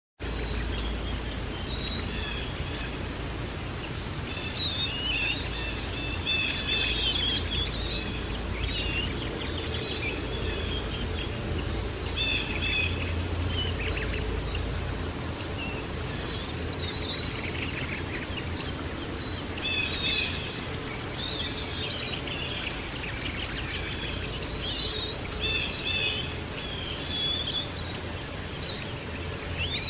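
Songbirds chirping and trilling continuously, many short calls overlapping, over a steady low background rumble; the sound cuts in suddenly out of silence right at the start.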